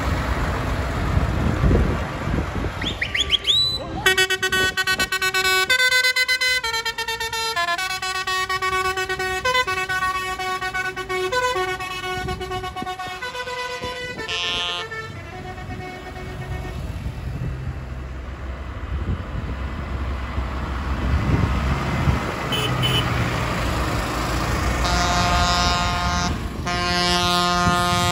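Tractor engines running as the parade passes, while a musical horn plays a quick tune of stepped notes for about ten seconds. Near the end the horn sounds again in a run of short repeated notes.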